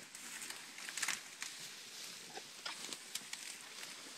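African elephant feeding in grass and bush: irregular crackles and snaps of stems and twigs being pulled and broken, over a steady hiss.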